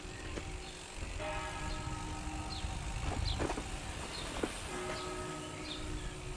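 Wind rumbling on the action camera's microphone while riding a bicycle down a village street, with a steady humming drone of several stacked tones and a few short falling chirps in the middle.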